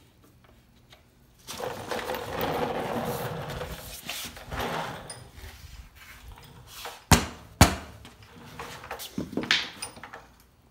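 Hands and tools working at a dirt bike's rear wheel: a couple of seconds of scraping and rustling, some clatter, then two sharp knocks about half a second apart and another a couple of seconds later.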